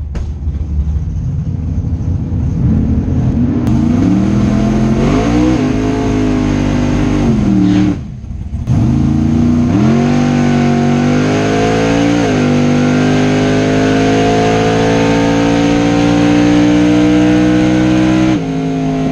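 Beretta-bodied drag race car's engine heard from inside the cockpit during a full-throttle drag strip pass: a low rumble at the start, then climbing in pitch at full throttle, dropping sharply twice at gear changes, and falling away near the end as the throttle is lifted.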